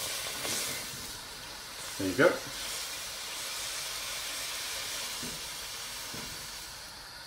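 Water hissing and sizzling in a very hot wok, well above the Leidenfrost point, so the water rides on its own vapour layer and skitters around the pan instead of boiling away. The steady hiss slowly fades toward the end.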